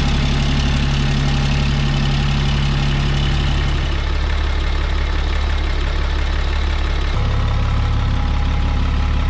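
A 6.7-litre Cummins inline-six diesel idling steadily through a selectable exhaust cutout. Its note changes about four seconds in and again about seven seconds in, as the exhaust is switched from the open hood stack to the rear tailpipe.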